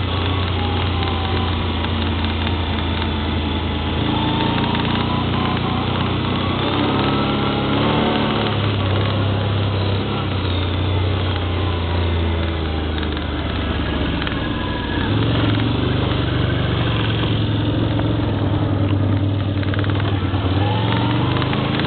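ATV engine running continuously, its low note shifting up and down with the throttle every few seconds.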